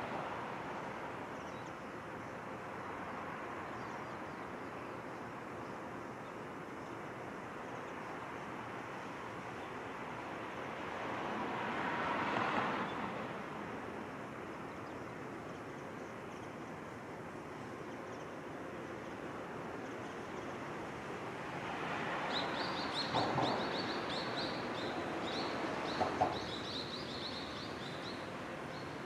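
Steady, distant rumble of an approaching freight train still far down the line, swelling about halfway through and again near the end. A bird chirps briefly near the end, and there are a couple of sharp clicks.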